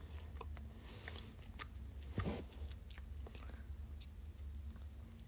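A person chewing dried fruit close to a phone microphone: faint, irregular small clicks and crunches of eating, with one louder bite or bump about two seconds in, over a steady low hum.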